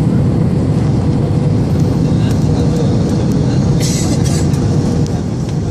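Jet airliner cabin noise during the descent with flaps extended: a steady low rumble of engines and airflow heard through the fuselage, with a faint steady hum. A brief hiss about four seconds in.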